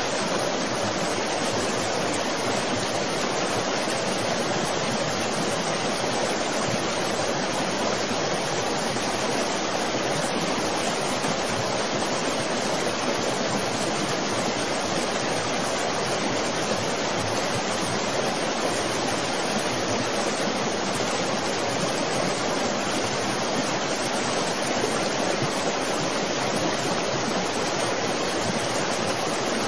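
Steady, even rushing noise of water.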